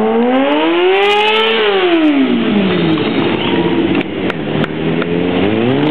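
Motorcycle engine revving: the pitch climbs for about a second and a half, falls back over the next second, holds lower, then climbs again near the end. A few sharp clicks about four seconds in.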